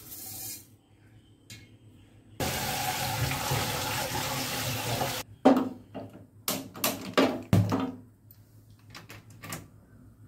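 Kitchen tap running for about three seconds, filling a pot with water, followed by a run of metallic clanks as the aluminium pot is handled and set on the gas stove, then a few light clicks near the end.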